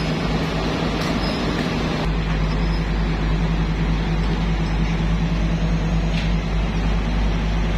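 Excavator's diesel engine running steadily. Its low drone shifts slightly about two seconds in.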